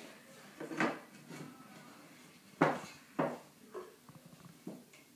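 An aluminium tube cake pan being greased by hand with margarine. It knocks and scrapes on the table several times as it is rubbed, the loudest knock about two and a half seconds in.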